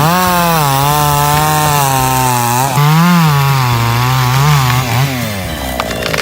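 Two-stroke chainsaw revved up to full throttle and held while cutting wood, its pitch wavering as the chain bites, then falling away as the throttle is released about five seconds in.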